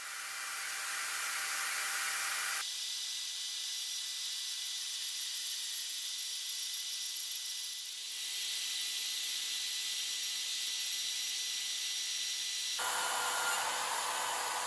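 Portable band saw, mounted upright, running and cutting through a thin-walled steel tank: a steady hissing rasp with a faint whine. Its tone changes abruptly about two and a half seconds in and again near the end.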